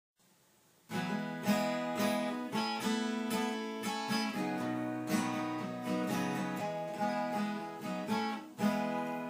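Acoustic guitar strummed in an instrumental song intro, coming in about a second in after a moment of near silence.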